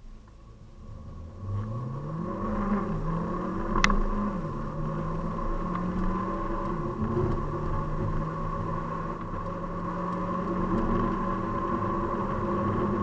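Mercedes-Benz CLA250e plug-in hybrid at full-throttle kickdown acceleration, heard from inside the cabin. The turbocharged four-cylinder's note comes in after about a second and a half and climbs in pitch. It drops back at gear changes about three, four and a half and seven seconds in, then holds a steadier, slowly rising note. There is a sharp click about four seconds in.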